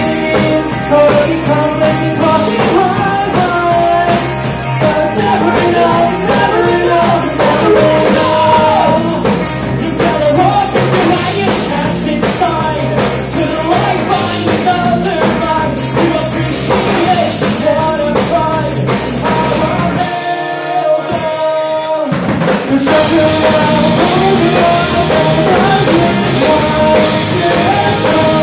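Live rock band playing: electric guitars, bass and drum kit under a sung vocal line. About twenty seconds in, the bass and drums drop out for a couple of seconds, leaving guitar, before the full band comes back in.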